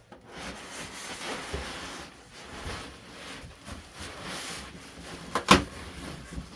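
Cardboard box and packing rubbing and scraping as the miter saw is handled inside it, with one sharp knock about five and a half seconds in.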